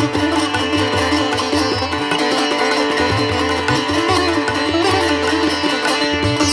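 Background music in an Indian style: plucked sitar-like strings with bending notes over a steady drone and a low pulse.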